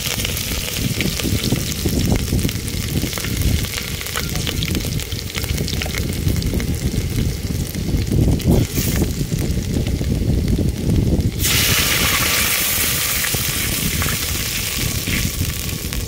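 Hot oil sizzling in a steel pot on a portable gas stove, frying a tempering of spice seeds and dried red chillies. The sizzle grows louder and brighter about eleven seconds in.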